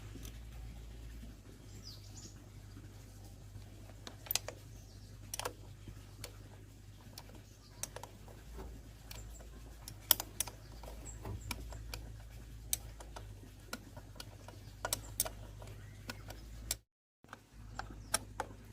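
Irregular light clicks and taps, like small metal parts and hand tools being handled, over a steady low hum. The sound cuts out briefly near the end.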